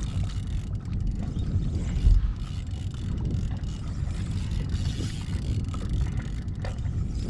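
Wind buffeting the microphone over open water, with a fishing reel being cranked against a fish pulling on a hard-bent rod; a stronger gust hits about two seconds in.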